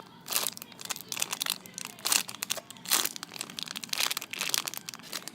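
Packaging crinkling in irregular bursts as a squishy and its wrapping are handled.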